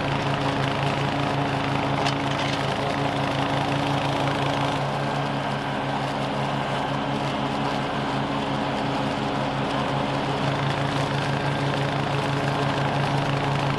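Toro TimeMaster 30-inch walk-behind mower's engine running steadily under load as it mows and mulches grass and fallen leaves, its note shifting slightly about five seconds in.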